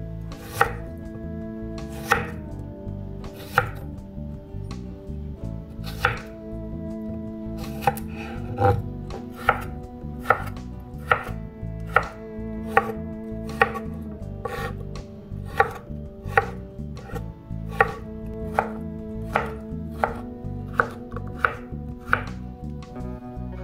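Santoku knife chopping a cucumber on a wooden cutting board, each cut ending in a sharp knock of the blade on the board. The cuts come about every second and a half at first, then speed up to roughly one a second.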